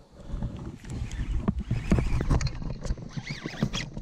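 Irregular close-up clicks and knocks from a baitcasting rod and reel being handled in a kayak, with a few short high squeaks about three seconds in.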